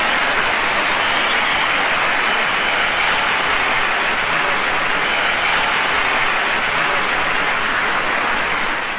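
Concert audience applauding steadily, fading out near the end.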